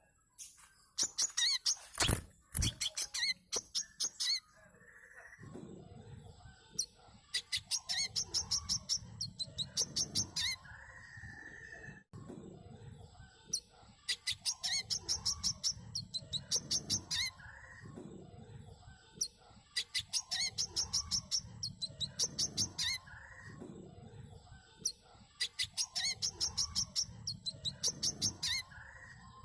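Brown-throated sunbird (manggar, kolibri kelapa) song: fast trains of sharp, high chirps, each about a second long. The trains come in pairs, repeating every few seconds.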